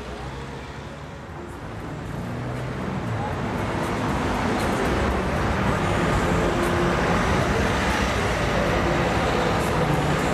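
Road traffic passing close by. The noise swells over the first few seconds and then stays loud and steady.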